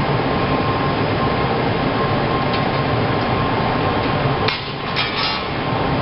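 Ladle furnace's graphite electrodes arcing over molten steel: a loud, steady, harsh noise. It dips briefly, with a few sharp clicks, about four and a half seconds in.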